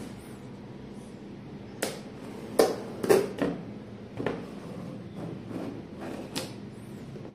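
Cardboard sound-bar box being handled on a floor mat: about six sharp knocks and rubs of cardboard, the loudest near the middle, over a steady low hum.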